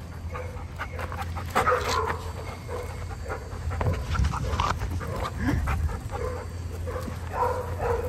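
Several dogs at play on gravel: panting and scuffling about, with a few short bursts of dog vocalising in between.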